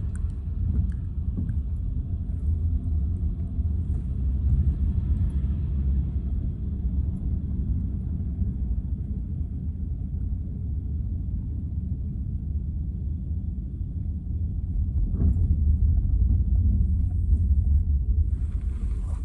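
Steady low rumble of a car in motion, heard from inside the cabin, swelling louder for a few seconds near the end.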